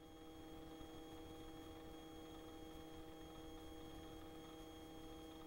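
Near silence: a faint, unchanging hum made of a few steady tones, with no rotor or engine noise coming through.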